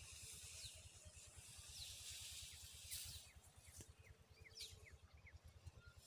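Faint rustle of wheat stalks brushed by a person moving through a standing wheat field. The rustle is louder in the first half, with a few short high falling chirps scattered through.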